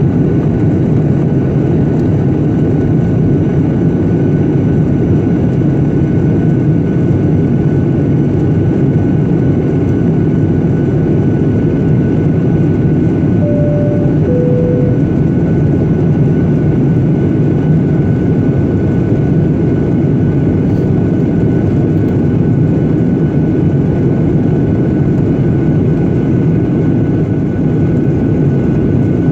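Steady jet engine and airflow noise inside an airliner cabin, heard from a seat beside the wing during descent, with a faint steady high whine throughout. About halfway through, a two-note falling cabin chime sounds.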